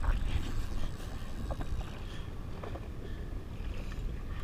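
Wind rumbling on the microphone over water lapping around a drifting jet ski, with a few faint short clicks.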